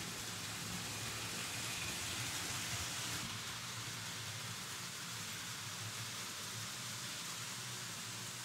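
Märklin H0 model trains rolling on stamped-steel M-track: a steady rushing hiss of the wheels on the metal track, over a faint low hum. It eases off slightly about three seconds in.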